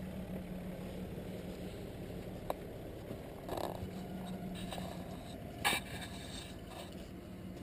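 Off-road 4x4's engine idling with a steady low hum, with a sharp click about two and a half seconds in and short scraping noises around the middle and near the end.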